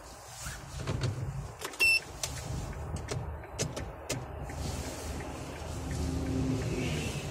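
Car interior noise in slow city traffic: a steady low engine and road rumble, with a short electronic beep about two seconds in and a few sharp clicks after it.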